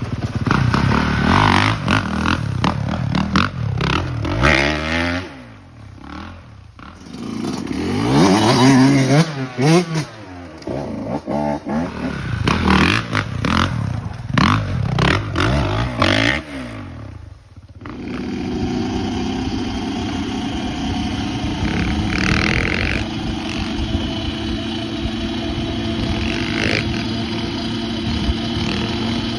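Honda CRF450RX's single-cylinder four-stroke dirt bike engine revving up and dropping back again and again, its pitch rising and falling, with short lulls around 6 and 10 seconds. About 18 seconds in the sound cuts to a steady, even engine drone.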